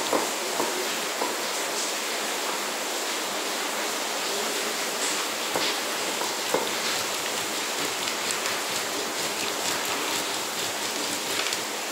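Stone mano being pushed over corn kernels on a stone metate: a steady rasping grind with scattered small clicks and cracks.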